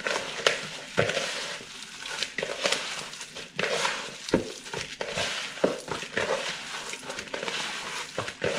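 Hands squeezing and kneading a raw ground-beef meatball mixture, wet with egg and breadcrumbs, in a plastic bowl: an irregular run of soft handling sounds with a few sharper clicks.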